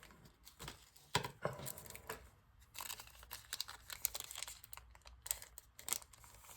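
Trading card pack wrapper being torn open and crinkled, with cards shuffled out of it in a run of faint, irregular crackles and clicks.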